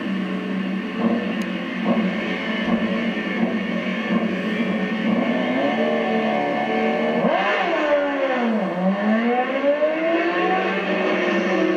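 Drag-racing motorcycle engines revving at the starting line, then launching down the strip about seven seconds in. The engine pitch dips sharply at the launch, then climbs steadily as the bikes accelerate away.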